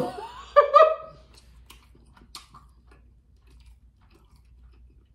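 A woman's short wordless vocal sound in the first second, then her quiet chewing of food with a few faint mouth clicks.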